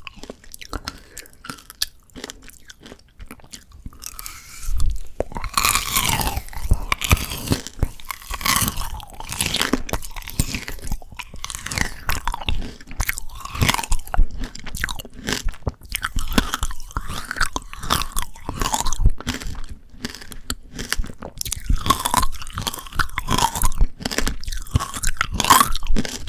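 Close-miked crunching and chewing of frozen Shine Muscat grape tanghulu, the hard candy shell cracking between the teeth in dense, irregular crunches. It is quieter for the first few seconds, then the crunching turns loud from about five seconds in.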